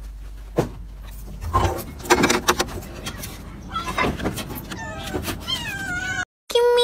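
Cats meowing, a string of rising and falling calls in the second half, after a few scattered knocks and rustles.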